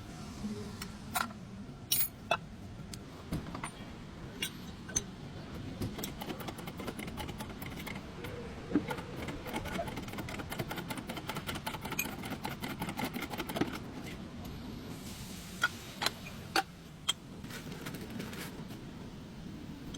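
Metal hand tools and parts clinking and clicking, with a spell of rapid ticking in the middle and a few sharp metallic knocks near the end.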